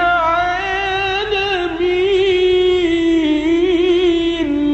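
Melodic Quran recitation (tajweed): a solo reciter sustains one long, ornamented phrase with wavering turns in pitch, ending near the end.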